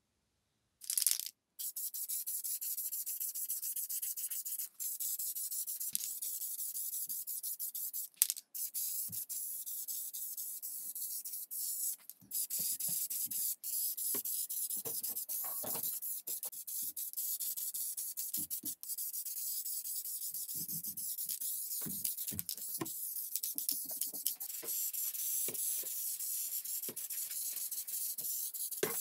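Steady abrasive scrubbing on a part, stopping briefly a few times, with some light knocks from handling midway.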